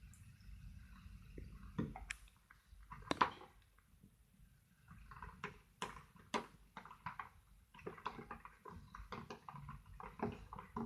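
Thickening slime being stirred in a bowl after borax is added, giving irregular wet squelches, smacks and clicks.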